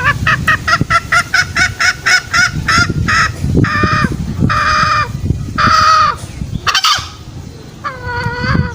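Junglefowl hen cackling: a fast run of short clucks for about three seconds, then a few longer drawn-out calls.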